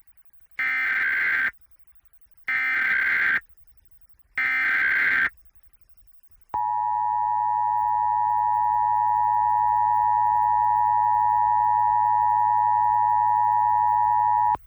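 Emergency Alert System SAME header: three short bursts of digital data screech, about a second each with silent gaps. Then the EAS two-tone attention signal (853 and 960 Hz together) sounds steadily for about eight seconds.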